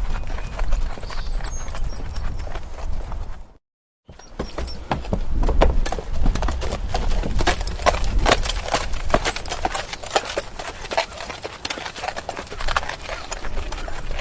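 Horse walking, its hooves clip-clopping in an uneven stream of knocks over a low rumble. The sound drops out completely for about half a second a few seconds in, then carries on.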